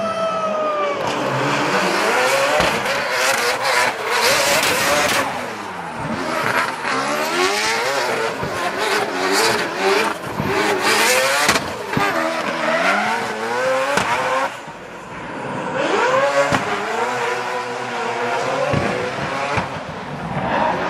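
Nissan GT-R (R35) drift car's engine revving hard through a drift, its pitch repeatedly swooping up and down as the throttle is worked, over sliding, squealing tyres. About two-thirds of the way through the engine drops away briefly, then climbs back up.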